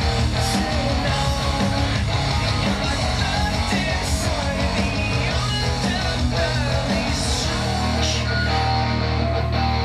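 Rock music with guitar and some singing.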